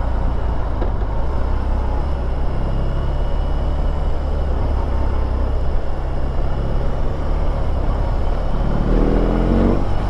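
BMW R18's 1.8-litre boxer twin running steadily, with a low rumble under wind noise, then rising in pitch as it accelerates near the end.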